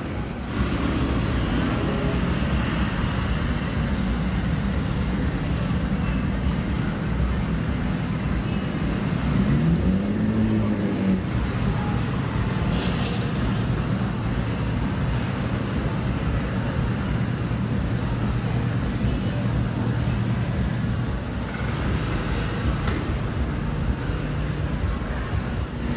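Street traffic: motor vehicle engines running steadily, one revving up and easing off about ten seconds in, with a short hiss a few seconds later.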